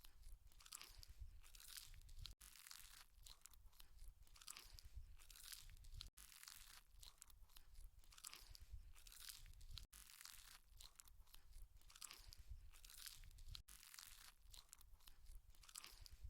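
Faint, close-up eating sounds: chewing, crunching and tearing at spicy chicken feet. A continuous run of short crunches, broken by brief silent gaps about every four seconds.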